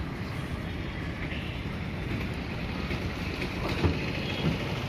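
Steady low rumble of wind buffeting the microphone, with a faint bump near the end.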